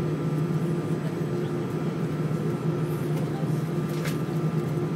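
Airbus A320 cabin noise while taxiing: the jet engines at idle give a steady drone with a low hum and a thin, higher whine. There is a faint click about four seconds in.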